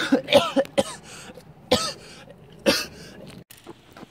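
A young man coughing hard: a quick run of harsh coughs in the first second, then single coughs about two and three seconds in.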